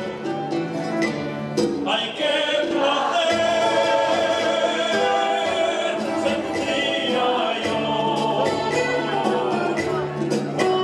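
A habanera sung by several voices together, with instrumental accompaniment and long held notes.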